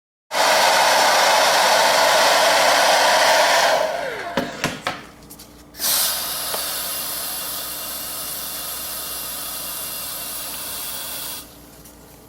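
Hair dryer blowing on high, switched off about four seconds in with its motor winding down in a falling whine. A few clicks follow, then a quieter steady blowing hiss starts up again about six seconds in and stops shortly before the end.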